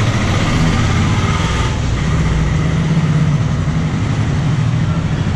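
Street traffic: a motor vehicle's engine running with a steady low hum under general road noise.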